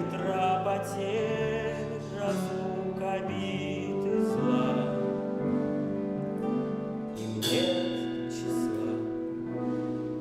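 Live band of piano, drums and guitar playing a slow song accompaniment, with a few cymbal strokes.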